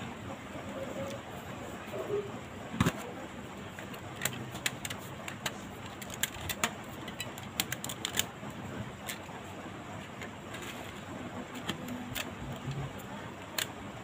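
Irregular light clicks and taps of a smartphone being handled, with rubber bands wrapped round it to clamp a freshly glued display while the glue dries, over a steady background hiss.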